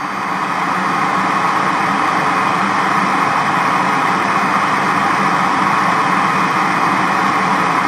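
Television static: a loud, steady hiss of white noise with a faint low hum under it.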